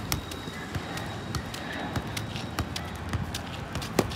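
Football being juggled keepy-uppy, a sharp tap each time the ball strikes foot, knee or body, irregular at about three a second, with the loudest touch near the end.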